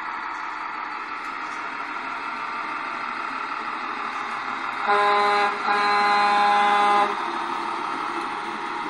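Tamiya King Hauler RC semi-truck sounding an air-horn from its electronic sound unit, a short blast and then a longer one about five seconds in, over a steady running-engine sound.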